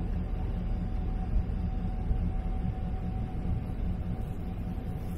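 Plow truck's engine idling steadily while parked, a low even rumble with a faint steady whine above it.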